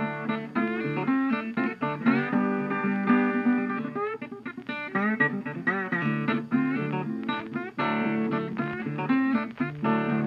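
Background music: plucked guitar playing a busy line of short picked notes with some sliding notes and a steady pulse.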